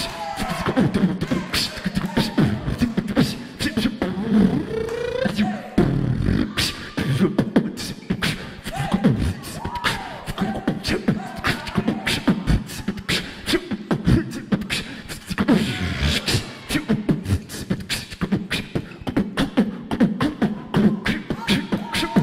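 Beatboxing: a voice making kick, snare and hi-hat sounds in a steady, fast beat, with a few short pitched vocal glides mixed in.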